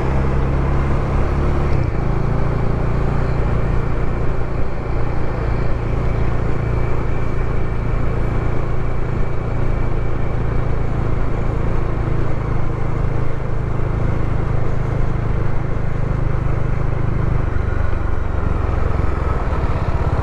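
Motorcycle engine running steadily under way, heard through a lavalier mic inside a helmet's chin curtain with wind and road noise over it. The engine note shifts about two seconds in and again near the end.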